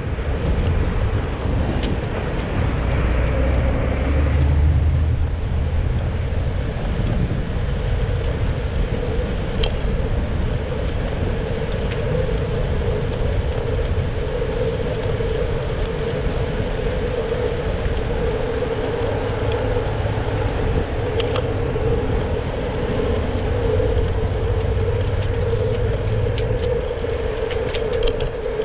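Steady urban road traffic: a continuous wash of engine and tyre noise, with a low rumble swelling about three to five seconds in and a steady hum that strengthens from about eight seconds on.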